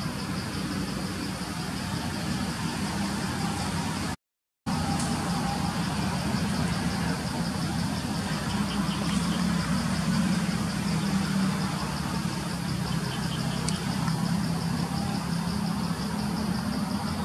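Steady outdoor ambience: a low engine-like drone under insects chirping in a fast, even pulse. The sound cuts out for about half a second around four seconds in.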